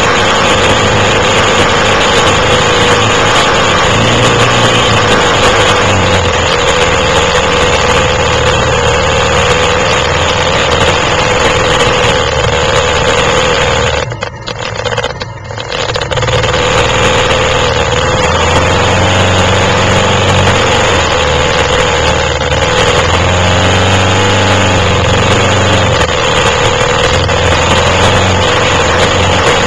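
Quad bike (ATV) engines running during an off-road ride, the engine note rising and falling, with dense rumble and noise. The sound drops away briefly about halfway through.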